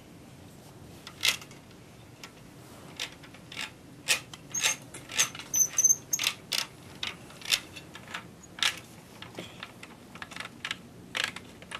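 Plastic toy construction vehicles and pieces being handled and moved: a string of irregular sharp clicks and clacks, thickest in the middle, one with a brief high-pitched ring.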